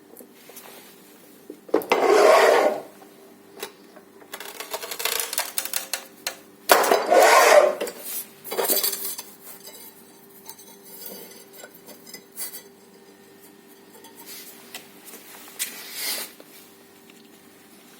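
Porcelain stoneware tile being worked on a manual tile cutter: two loud scratchy scraping strokes of about a second each, with lighter scrapes and clinks of ceramic and metal between and after.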